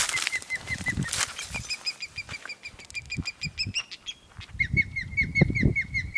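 A bird calling in rapid series of short, clear, repeated notes, about five or six a second, which stop a little past the middle and start again about four and a half seconds in. Low bumps and rustling of handling run beneath, strongest in the second half.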